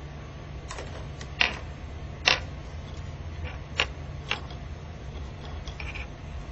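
About half a dozen sharp, separate clicks and taps from a hand handling a small wired electronic part and its leads on a table, over a steady low hum.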